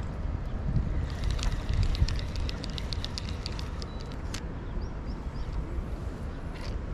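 Wind buffeting the microphone, a steady low rumble. From about a second in, a rapid run of sharp high ticks lasts for about three seconds.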